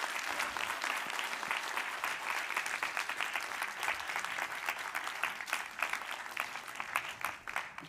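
Audience applauding: a dense run of hand claps that thins out near the end.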